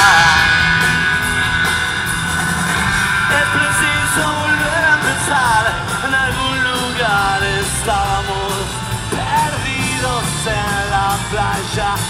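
Live rock music: a band with electric guitar playing and singing over it.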